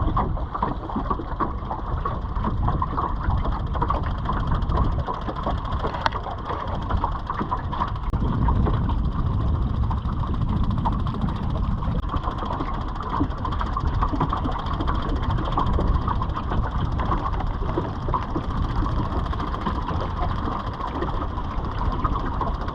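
A small clinker sailing dinghy under sail in a breeze: wind buffeting the microphone in a steady low rumble, over the rush and splash of water along the hull.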